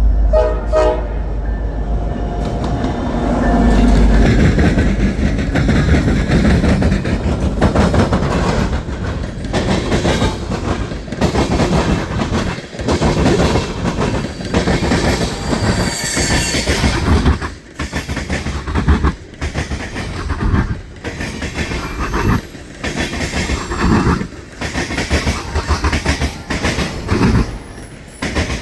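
Norfolk Southern freight train passing at speed: the locomotive horn ends about a second in, then the cars roll by with a steady clatter of wheels over rail joints.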